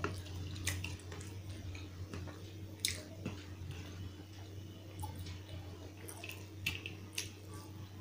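Fingers mixing and pressing cooked rice on a steel plate: soft wet squishing with a few sharp sticky clicks scattered through, over a steady low hum.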